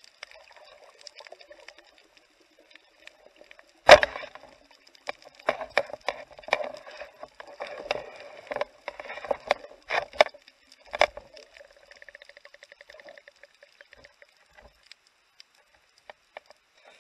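Underwater sound of a diver moving close to rocks: a sharp knock about four seconds in, then a run of knocks and scraping until about eleven seconds, then a quick, even ticking. Faint scattered clicks run underneath.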